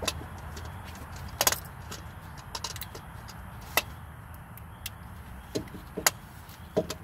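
Scattered sharp metallic clinks and taps of hand tools and bolts, irregular and spaced a second or so apart.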